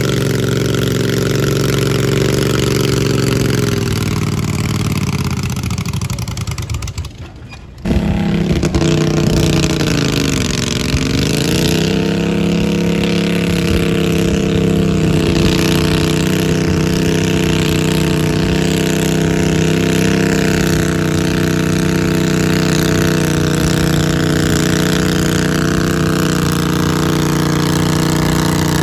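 Modified garden pulling tractor engine running at high revs. It winds down and fades away about five to seven seconds in, then comes back suddenly at full loudness, dips in pitch briefly and holds steady at high revs.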